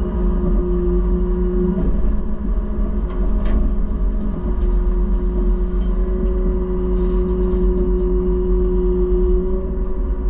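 Heavy farm machinery running steadily: a deep engine rumble with a constant whine held over it.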